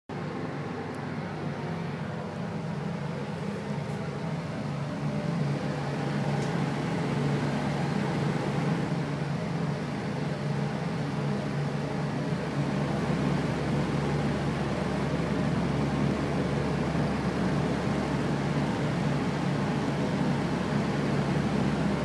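A fan running steadily: an even rush of air with a low hum. It grows a little louder over the first few seconds, and a deeper hum joins about halfway through.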